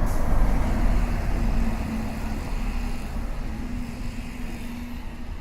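City street traffic: a motor vehicle's engine rumbles close by with a steady hum, loudest in the first second or so, then fades away as it drives off.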